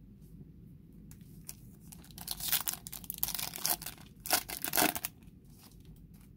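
A foil trading-card pack being torn open, its wrapper ripping and crinkling in a run of irregular rasps, loudest from about two to five seconds in.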